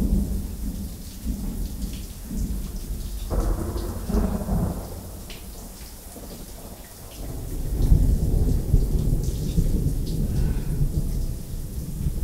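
Deep rumbles of thunder swelling and fading, loudest right at the start and again from a little past halfway, over a steady hiss of falling water.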